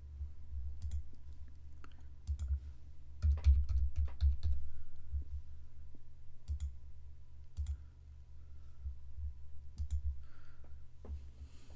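Computer mouse clicks and keyboard keystrokes, an irregular scatter of sharp clicks that is busiest about three to four seconds in, over a steady low hum.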